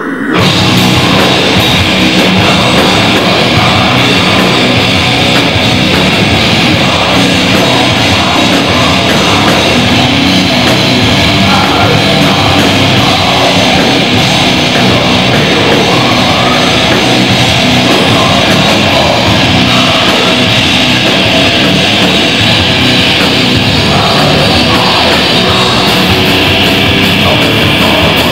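Heavy metal band playing live at full volume: bass guitar, electric guitar through Marshall amps, and drums, with harsh shouted vocals over them. The band crashes back in right at the start after a short drop and then plays on without a break.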